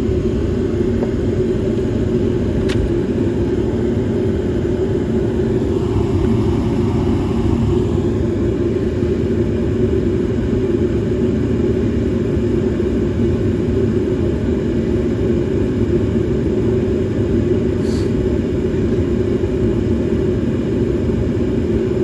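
Gas furnace firing, a steady low rumble, while its gas valve's outlet pressure is turned down toward 3.5 inches of water column.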